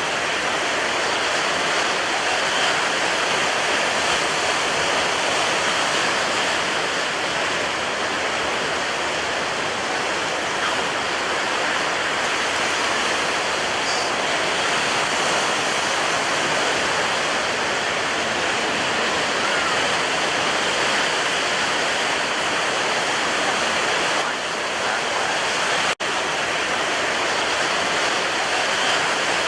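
Water rushing in a steady, unbroken wash with no distinct wave surges; the sound drops out for an instant near the end.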